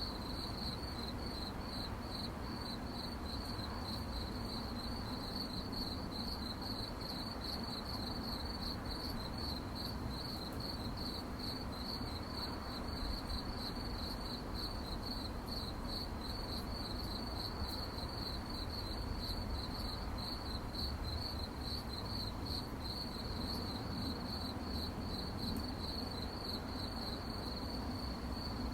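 Crickets chirping at night in a steady, even rhythm of high-pitched pulses, a few a second, over a faint low background rumble.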